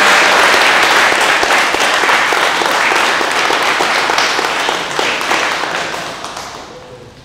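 A room full of people applauding with steady hand clapping, dying away over the last couple of seconds.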